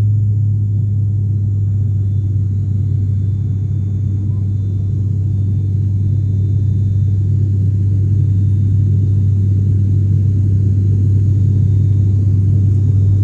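Cabin noise of an ATR turboprop airliner: a loud, steady low propeller drone that grows gradually louder.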